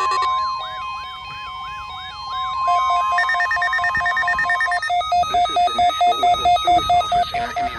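Several NOAA Weather Radio receivers sounding their alert tones together as a Required Weekly Test activates them. A warbling, siren-like tone of about two sweeps a second plays over a steady high tone for the first three seconds. From about five seconds in there is rapid beeping in two pitches, about three beeps a second, and a radio voice begins faintly near the end.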